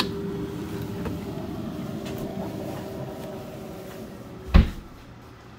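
A steady hum that fades out, then a single heavy thump about four and a half seconds in.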